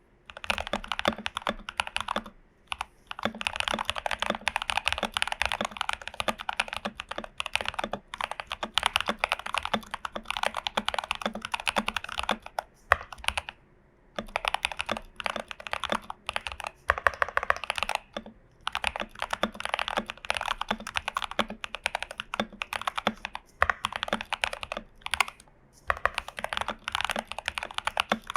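Fast typing on a Glorious GMMK Pro mechanical keyboard with a tape mod, lubed and filmed Prevail Epsilon switches and PBT dye-sub keycaps: dense runs of keystrokes broken by a few short pauses.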